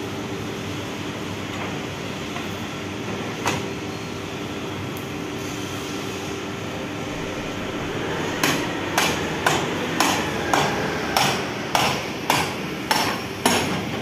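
Hammer blows: one lone strike a few seconds in, then a steady run of about ten strikes, roughly two a second, starting just past halfway, over a steady hum.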